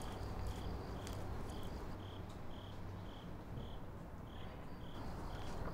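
Crickets chirping in a steady rhythm, about two chirps a second, with a short pause a little past the middle, over a faint low hum.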